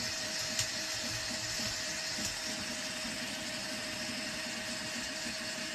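VzBot 3D printer running a print: cooling fans whir with a steady tone while the stepper motors buzz as the toolhead moves over the bed.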